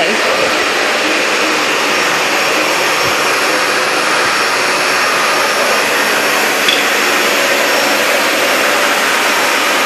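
Vacuum cleaner running steadily, an even rushing noise that holds at one level.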